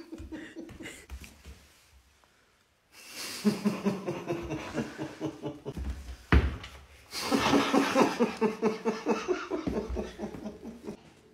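Adults laughing hard in rhythmic bouts. The first bout fades out about two seconds in, and after a brief silence two more long bouts follow, separated by a sharp click about six seconds in.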